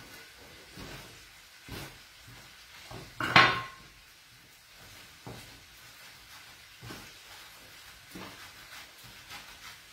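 A metal bench scraper clatters down onto a wooden pastry board about three and a half seconds in, with a short metallic ring. Around it, soft knocks and rubbing of hands rolling gnocchi dough on the board.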